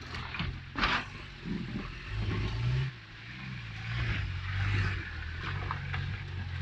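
Nissan Patrol Y60 off-roader on 37-inch tyres crawling over creek-bed rocks, its engine running low and revving up twice under load. A sharp knock sounds about a second in.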